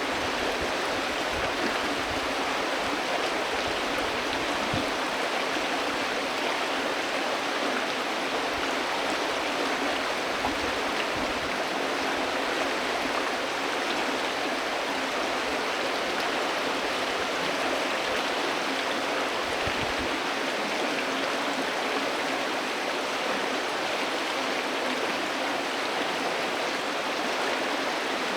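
A river flowing, a steady rush and babble of water that holds even throughout.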